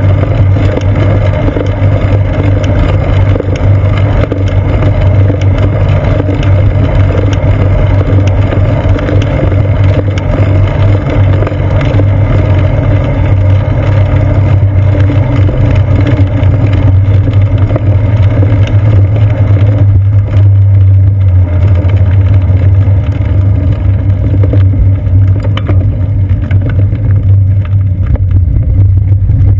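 Steady, loud low rumble of wind and road vibration on a bicycle's seat-post-mounted GoPro Hero 2 while riding.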